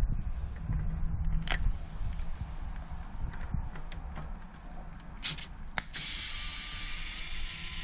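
Scattered light clicks and knocks of parts being handled, then about six seconds in a steady spraying hiss that lasts about two seconds and stops abruptly.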